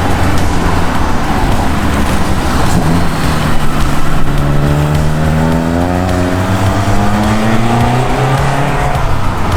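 Renault 5 GT Turbo running a 1.8-litre 16-valve naturally aspirated four-cylinder engine, accelerating hard under load. The engine note climbs steadily in pitch from about three seconds in, as it pulls through a gear.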